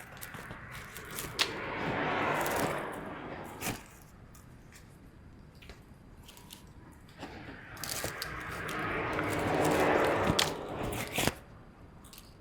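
Scrap wire being rummaged and pulled about by hand: two long spells of rustling and crinkling with scattered clicks and knocks.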